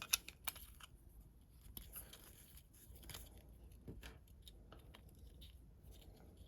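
Faint clicks and light scraping from the small metal parts of a lock cylinder being handled and adjusted, with two sharper clicks in the first half second.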